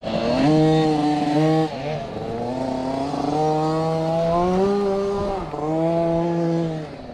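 Motocross dirt bike engines revving hard at high rpm. The pitch holds, drops briefly, climbs slowly, drops again about five and a half seconds in, then holds, as the throttle and gears change.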